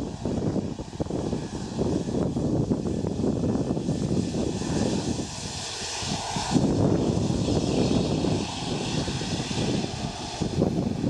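Boeing 757-224's twin jet engines running at taxi power as the airliner turns onto the runway: a steady rumble with hiss, which gets brighter and a little louder about six and a half seconds in as the engines swing round.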